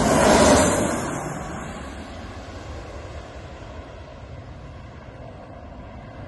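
Jet engines of a J-AIR Embraer regional jet passing low overhead on landing approach, gear down. The noise peaks about half a second in and fades over the next second and a half to a steady low background rumble.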